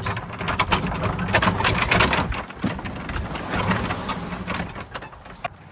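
Vehicle engine running while the vehicle is driven and parked, with clattering noise over the engine note; the sound dies down toward the end.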